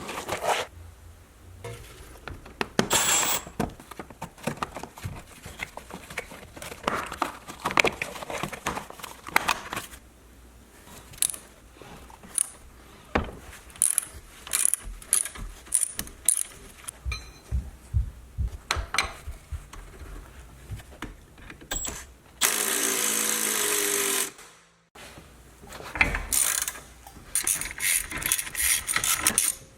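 Hand tools working on a car's front suspension: scattered metal clicks, knocks and ratcheting. About three-quarters of the way through, a power tool runs for about two seconds.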